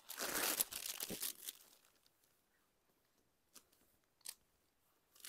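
Rustling and crinkling as a saree is handled, dense for about the first second and a half and then dying away, followed by a few faint ticks.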